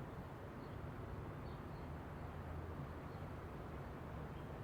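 Quiet background ambience: a steady low hum with a few faint, short high chirps.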